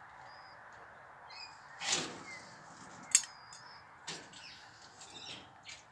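Lace monitor taking a dead rodent from long metal feeding tongs: a rustling scrape about two seconds in, a sharp click just after three seconds that is the loudest sound, and softer knocks after it. Short bird chirps come and go over a steady hiss.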